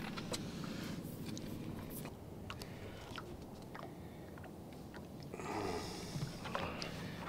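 Scattered small clicks and rustles of hands handling a caught largemouth bass and a baitcasting rod, over a low background rumble. A denser, muffled rustle comes about five and a half seconds in.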